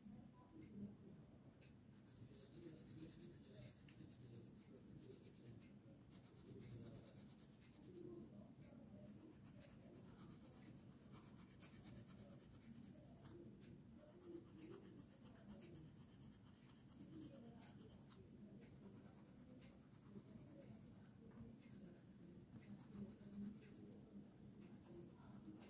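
Faint scratching of a blue coloured pencil shading on drawing paper. It comes in stretches of quick back-and-forth strokes with short pauses between them.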